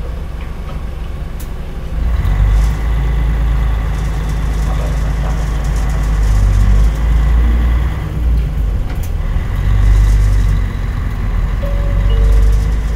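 Mitsubishi Fuso (MBM) KL-MP37JK diesel city bus heard from inside, with the engine running. Its low rumble grows louder about two seconds in and then swells and eases several times as the engine pulls.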